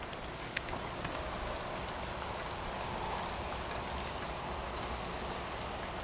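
Steady rain falling, with a few sharp drip ticks scattered through it.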